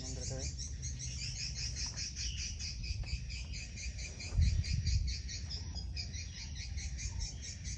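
Insects chirping in a fast, even, repeating rhythm, with a low steady rumble underneath and a brief low thump about halfway through.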